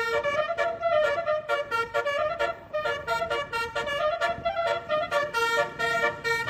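Basuri multi-tone 'telolet' bus horn playing a quick tune of short, chord-like notes that change pitch several times a second.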